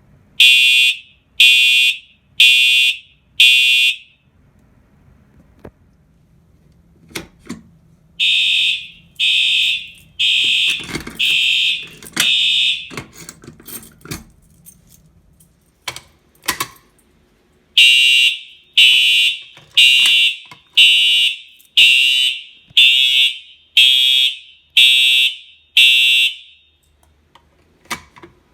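Home fire alarm system's horns sounding in short pulses, about one a second, in three groups of about four, five and nine, as devices are tripped during an audible walk test. A few short knocks come in the gaps between the groups.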